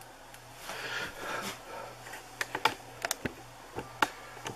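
Hands handling a foil packet and a paper lint-free wiper: a soft rustle, then a scatter of light, crisp clicks and crinkles.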